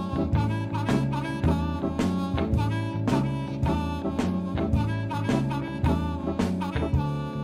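Background jazz music with saxophone, drum kit and a walking bass line, at a steady beat.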